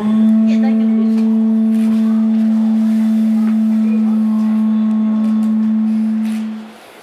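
Conch-shell trumpet (horagai) blown in one long, steady note that stops about six and a half seconds in. It is the signal for the train's doors to open.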